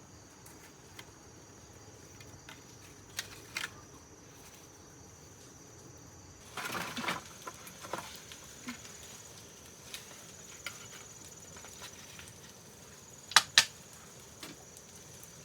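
A steady, high insect trill runs underneath. Over it come a few scattered light clicks, a brief rustling clatter about halfway through, and two sharp clicks in quick succession near the end.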